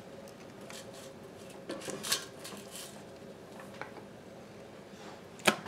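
Air fryer basket and kitchen tongs being handled: light clatter and knocks about two seconds in, and a sharp knock near the end, over a faint steady hum.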